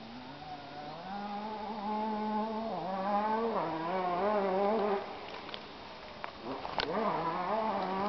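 A flying insect buzzing close by. Its pitch wavers and shifts as it moves. It drops off about five seconds in and comes back about a second and a half later.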